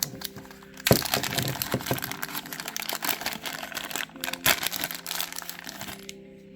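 Packaging crinkling and crackling as it is unwrapped by hand for about five seconds, with a couple of sharper cracks, one about a second in and another past the midpoint.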